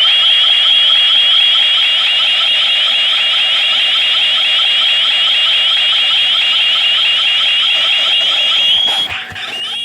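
A loud, high-pitched electronic alarm tone warbling rapidly, about six or seven quick chirps a second. It holds steady, then cuts off about nine seconds in.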